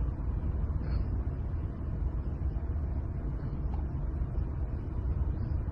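Steady low rumble of a car's interior with the engine running.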